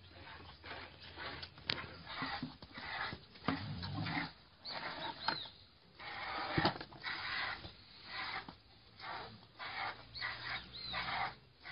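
Piglet suckling at a cow's teat: irregular wet sucking and smacking sounds, with a couple of sharp clicks and a few faint short high squeaks.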